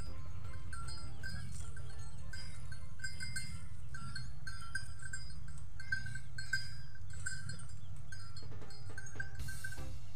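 Bells on a pair of plough oxen clanking irregularly as the animals pull a wooden plough through a field, with short ringing notes several times a second over a steady low rumble.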